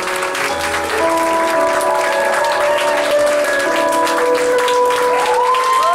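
Applause and clapping over background music of long held notes, which slide up and down in pitch near the end.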